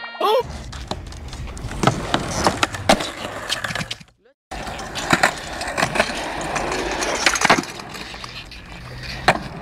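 Skateboard wheels rolling over concrete with a steady grinding rumble, broken by several sharp clacks of the board striking the ground and ledge. The sound cuts out completely for about half a second around four seconds in.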